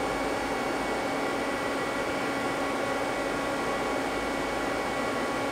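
Steady hum and hiss of running machinery and fans, with a few faint steady tones and no change throughout.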